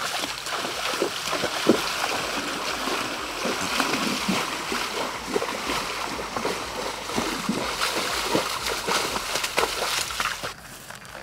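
Horse wading through a shallow river, its hooves churning the water in irregular splashes; the splashing dies down near the end.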